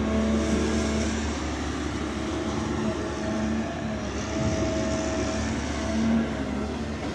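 Hydraulic excavator working: its diesel engine runs steadily under load, with a pitched hydraulic whine that rises in and drops out every second or so as it digs.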